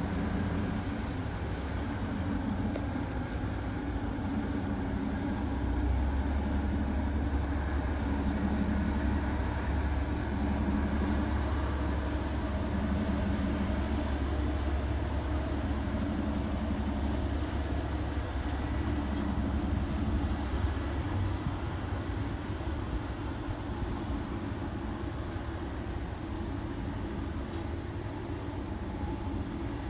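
Steady low engine rumble, with a deeper drone that comes in about six seconds in and drops away about twenty-one seconds in.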